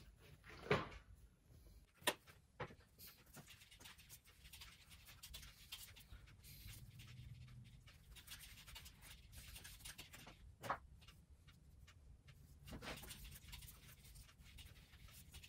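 A few short spritzes from a hand trigger spray bottle of isopropyl alcohol and a cloth wiping over the fork stanchions, with faint rustling and scattered small clicks in between. It is quiet throughout.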